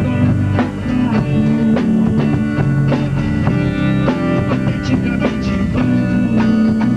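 Rock band playing live in a rehearsal room: guitar and bass with a steady drum-kit beat.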